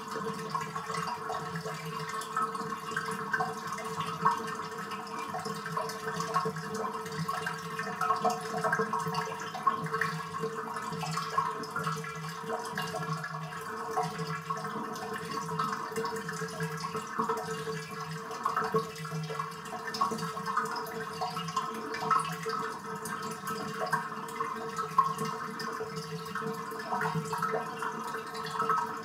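Bathtub draining: water gurgling down the drain, with a steady tone under irregular bubbling.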